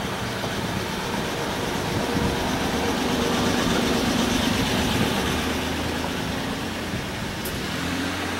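A motor vehicle's engine running on the street close by, growing louder a few seconds in and easing off again, over steady street noise.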